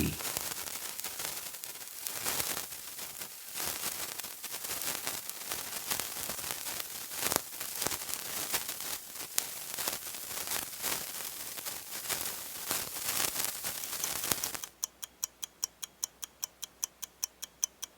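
A lit sparkler fizzing and crackling steadily. About three and a half seconds before the end it gives way to a fast ticking, about six ticks a second, like a countdown clock.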